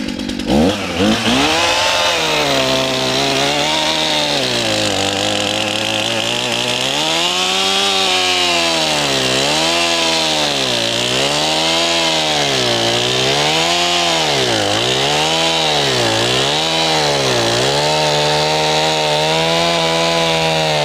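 Stihl two-stroke chainsaw revved up and cutting into a log, its engine pitch rising and falling over and over as the chain bogs into the wood and picks up again, then running steadily near the end.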